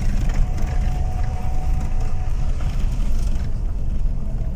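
Steady low rumble of a car's engine and tyres heard from inside the cabin while driving on a rough, dusty dirt road. A faint thin whine runs from about half a second in for nearly two seconds.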